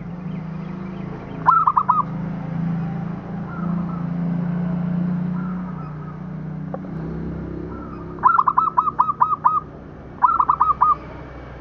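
Zebra dove (perkutut) cooing in quick staccato runs of clear notes: a short burst of about four notes, then a longer run of about seven and another short run of about four near the end.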